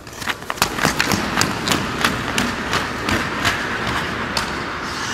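Hockey skates scraping on the ice as the player pushes off, with a run of sharp clicks from the stick blade and puck. The scraping hiss builds toward the end.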